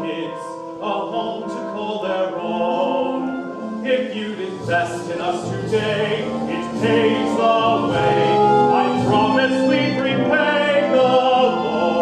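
Stage-musical song: voices singing over instrumental accompaniment, with a lower bass part joining about four and a half seconds in.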